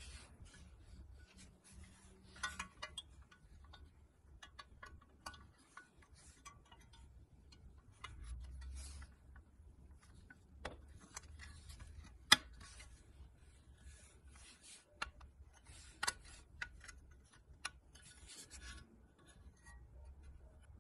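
Rubbing and scattered light clicks of small hard parts being handled and worked, with one sharp click about twelve seconds in.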